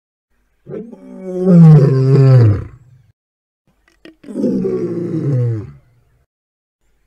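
Two lion-style monster roars for the winged lion Griffon, a long one followed by a shorter one, each dropping in pitch as it ends. A faint click comes just before the second roar.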